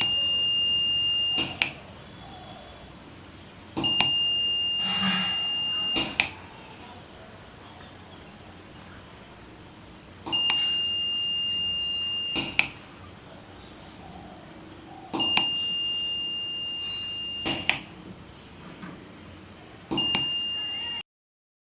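The piezo buzzer of a homemade RF433 wireless doorbell sounds a steady, high-pitched beep five times, each lasting about two seconds except a shorter last one, with a click as most beeps start and stop. Each beep is the receiver answering a press of the wireless transmitter's button.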